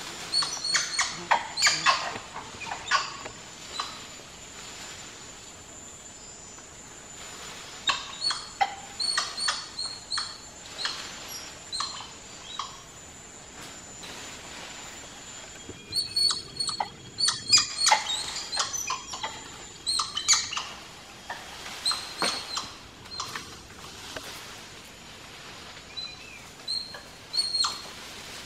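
Spider monkeys giving agitated calls: bursts of short, sharp, high squeaks and chirps near the start, again around a third of the way in, most densely just past the middle, and briefly near the end, with quieter gaps between.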